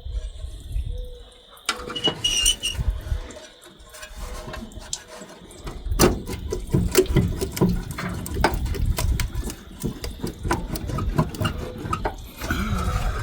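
Metal knocks, clanks and scraping as a stuck exhaust pipe is worked loose, with a brief high squeal about two seconds in. The knocks come thick and fast from about six seconds on.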